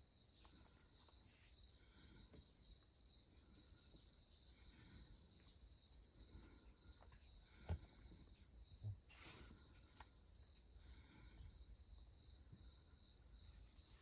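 Near silence with a faint steady high-pitched tone. Near the middle come two soft taps a little over a second apart, from gloved hands handling the toy tractor.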